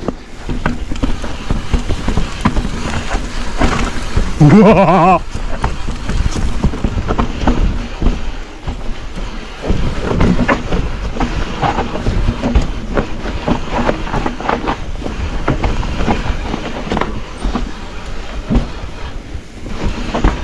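Mountain bike rattling and clattering at speed down a rough enduro trail, with constant tyre and wind rumble and irregular knocks from the frame, chain and wheels over rocks. About four and a half seconds in, a rider gives a short wavering shout.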